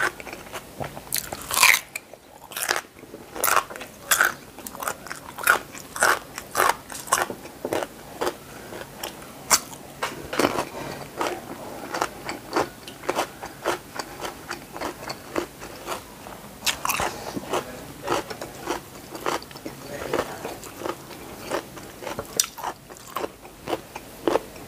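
Close-miked chewing of a crunchy raw green vegetable: a steady string of crisp crunches, often one or two a second, with wet chewing between them.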